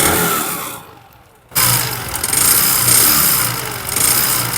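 Bajaj Discover 110 cc single-cylinder four-stroke engine running and revving with a tak-tak knock, which the mechanic suspects comes from a seized piston and its rings. The sound drops away briefly about a second in, then the engine runs again.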